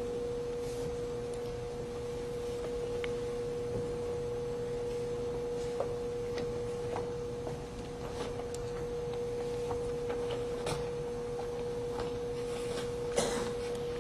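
A steady single-pitched whine runs throughout, with faint scattered clicks and a brief rustle near the end.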